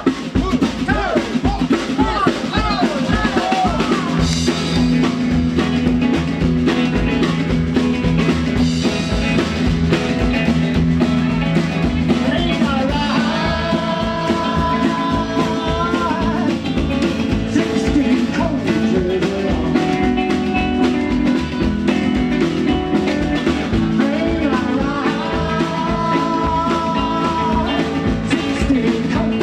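Live rockabilly band playing: strummed acoustic guitar, electric guitar, upright double bass and drum kit, with a man singing into the microphone. Sung phrases stand out about a third of the way in and again near the end.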